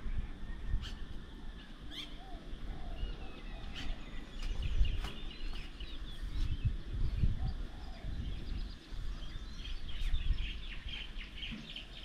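Several birds chirping and calling, with a fast run of short chirps in the last few seconds, over an uneven low rumble.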